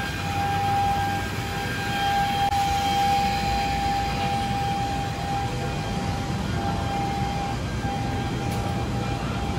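City street noise, with a steady mid-pitched tone over it that breaks off and comes back several times.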